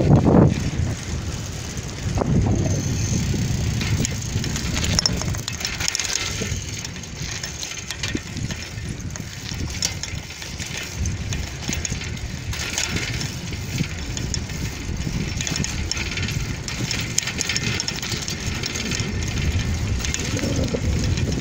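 Wind on the microphone and tyre rumble over rough, patched asphalt, with scattered rattles and clicks throughout.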